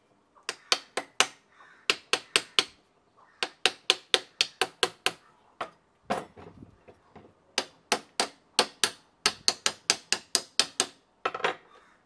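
Sharp metallic taps and knocks from a screwdriver working at the metal casing of a washing machine motor to loosen its end cover, in quick runs of several strikes at about four a second with short pauses between.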